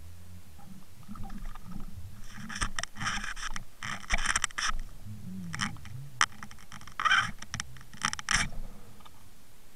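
Clusters of sharp clicks and scrapes from an underwater camera rig on a fishing line, over a low steady hum. The clicks come in two bouts, from about two seconds in and again from about five and a half seconds in, with one lone sharp click between them.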